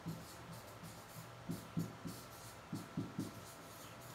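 Soft, faint taps of a stylus on an interactive whiteboard's screen while words are written, about six at uneven spacing, over a steady low hum.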